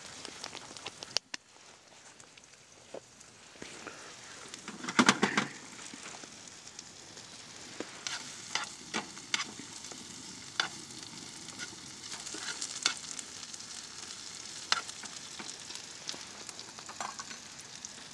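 Sliced onions sizzling in a frying pan on a wood-burning stove, stirred with a metal spoon and tongs that click and scrape against the pan. The clicks come at irregular moments, with a louder clatter about five seconds in.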